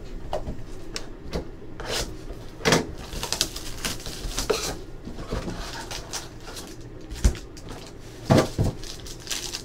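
A cardboard hobby box of trading cards being opened by hand and its packs pulled out and stacked: rustling and scraping of cardboard and pack wrappers, with a few sharp knocks, the loudest near the end.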